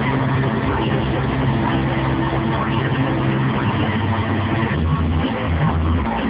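Cheerdance routine music played loud: a sustained low droning note, then about five seconds in a heavy pounding bass beat kicks in.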